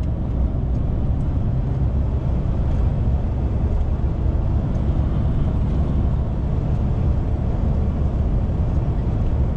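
DAF XF 530 semi-truck heard from inside the cab while driving: the PACCAR MX-13 diesel engine's steady low drone mixed with road noise.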